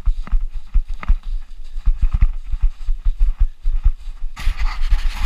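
Running footsteps in snow, heard as quick, rhythmic thumps through a body-worn camera. A hissing rush starts near the end.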